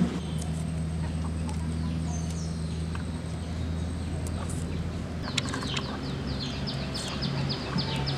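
A bird calling a rapid series of short, high, falling notes, about five a second, starting about five seconds in, over a steady low hum.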